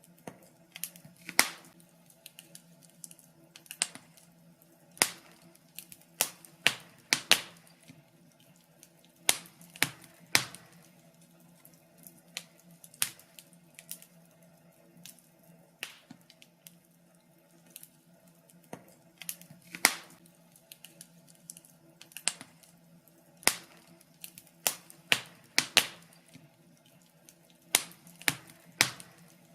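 Wood fire in a fireplace crackling, with irregular sharp pops and snaps, some much louder than others. A faint steady low hum runs underneath.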